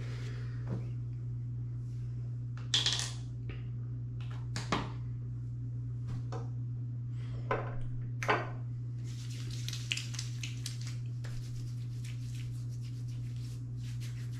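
Light clinks and knocks of small hard objects being handled and set down on a hard surface, the sharpest about three, five and eight seconds in, over a steady low hum.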